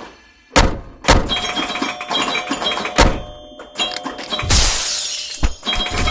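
Outro music and sound effects: sharp, heavy hits about half a second, a second and three seconds in, with held tones between them and a hissing swell near the end.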